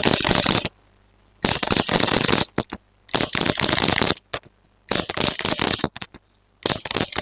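Repeated bursts of dense bone-cracking crackle, about five of them, each lasting roughly a second and separated by dead silence. These are the cracking sounds laid over a chiropractic spinal adjustment.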